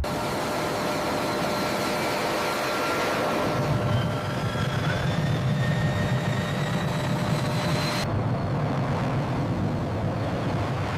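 Fighter jet engines running loudly: a steady rush of noise with thin whining tones, one rising slightly in pitch. About eight seconds in, the high hiss cuts off suddenly, leaving a lower rumble.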